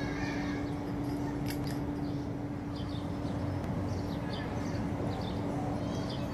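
Steady outdoor background noise with a constant low hum on one pitch, and a few faint, short high chirps in the middle.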